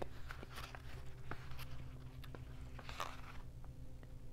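Pages of a thick paperback being leafed through: soft paper rustles and small ticks, with a slightly louder rustle about three seconds in, over a faint steady hum.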